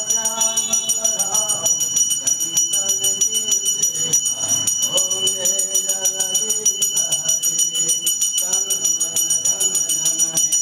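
Temple bell rung rapidly and without pause, its high ringing tones held steady, over devotional singing with music. This is the continuous bell-ringing of a Hindu aarti before Lord Jagannath.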